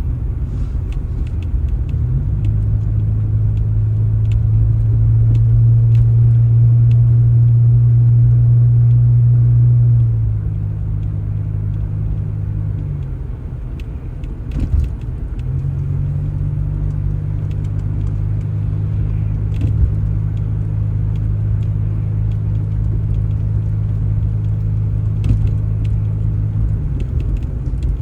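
Vehicle engine running with a low, steady drone that shifts pitch several times: it steps up about two seconds in and is loudest for the next several seconds. It changes again about ten and thirteen seconds in, dips briefly, then holds a new level until near the end.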